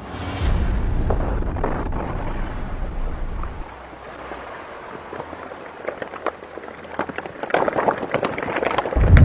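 Volcanic eruption: a deep rumble with a rushing noise for the first few seconds, easing to a quieter hiss with scattered crackles and pops that grow busier, then a heavy low thump near the end.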